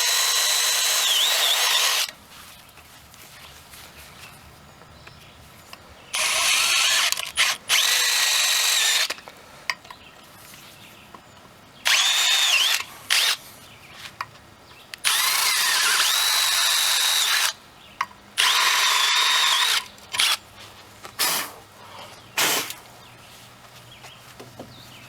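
Power drill running in repeated bursts of a few seconds each, with pauses between them, its whine rising and falling in pitch as the trigger is worked, while drilling the bolt holes to mount a hydrofoil fin on an outboard's lower unit. A few short blips come near the end.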